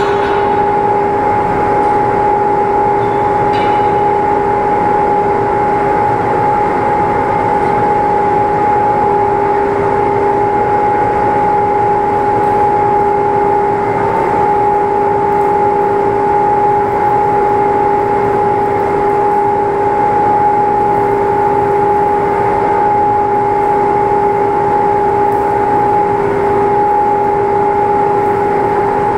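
A machine running steadily, a constant hum with a held tone over a rushing noise, unchanged throughout.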